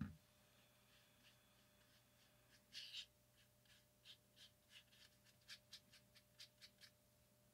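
Faint, quick dabs of a watercolor liner brush on watercolor paper, short crisp strokes at about three a second that start a couple of seconds in, over a faint steady hum.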